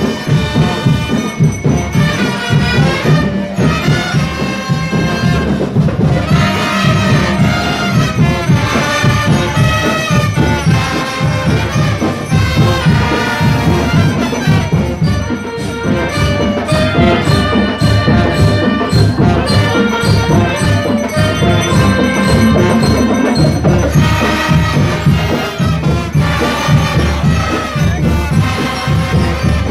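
Marching band playing a tune, with saxophones and clarinets carrying the melody over a steady drumbeat.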